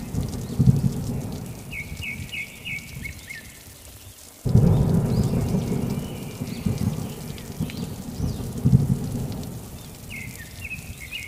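Thunderstorm ambience: rain with a rolling thunder rumble that drops away and comes back abruptly about four and a half seconds in. A few quick bird chirps sound about two seconds in and again near the end.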